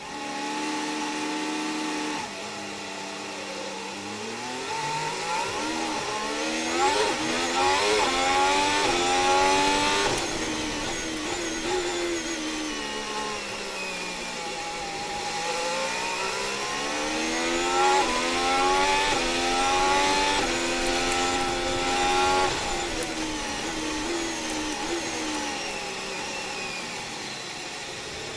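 Onboard sound of a Ferrari Formula 1 car's 1.6-litre turbocharged V6 hybrid engine in the wet. The pitch climbs in steps through the gears, drops as the car slows, then climbs through the gears again, over a steady hiss.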